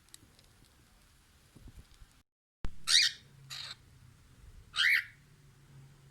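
Cockatiel giving three short, sharp calls in the second half: the first two close together, the last about a second later.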